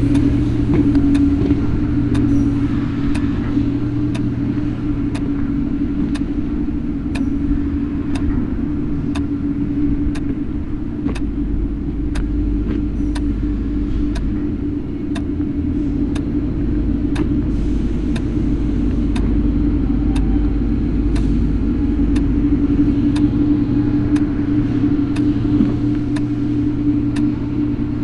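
Steady low mechanical hum of running machinery or an idling engine, with faint, regular ticks about every two-thirds of a second.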